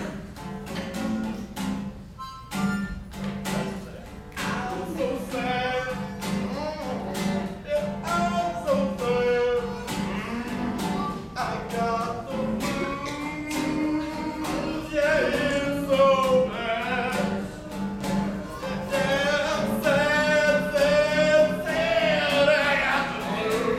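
A voice singing a melody over acoustic guitar strumming, with long, wavering held notes in the second half.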